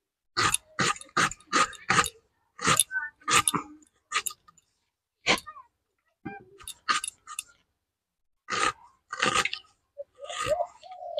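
Garlic cloves being sliced against a boti, a fixed curved kitchen blade: a series of short, crisp crunching cuts, five in quick succession at first, then more irregular and spaced out. A brief pitched sound comes near the end.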